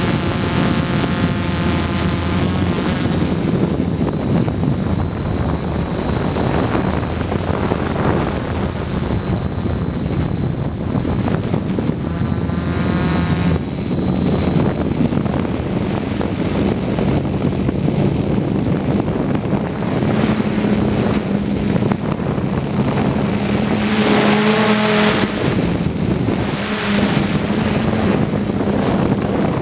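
Gaui 330X quadcopter's brushless motors and propellers whirring in flight, heard from on board, the pitch rising and falling as the motors change speed.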